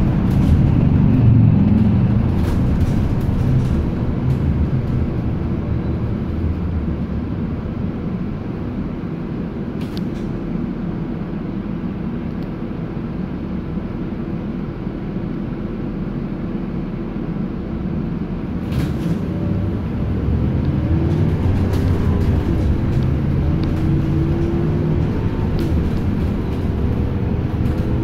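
City transit bus heard from inside the passenger cabin: steady engine and road rumble, easing off in the middle and building again later, with a faint rising whine in the second half and a few sharp rattles and clicks.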